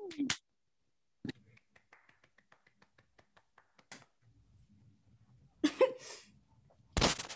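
Quiet room tone over a video call, broken by a few faint clicks and taps. A short vocal exclamation comes about six seconds in, and a brief, louder burst of noise follows near the end.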